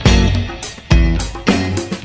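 Background music with a steady beat: drums, bass and guitar.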